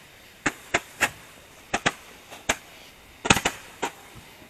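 Beehive consumer firework going off in a quick irregular series of sharp cracks and pops, about a dozen in all, with a tight burst of several about three seconds in, as it fires glowing stars upward.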